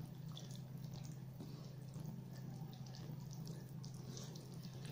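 Silicone whisk stirring flour into wet cake batter in a glass bowl: faint, irregular wet clicks and scrapes over a steady low hum.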